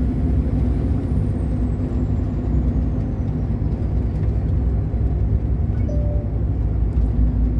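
Heavy truck's diesel engine running steadily, heard from inside the cab, with road and tyre noise. A faint high whine falls slowly in pitch over the first few seconds.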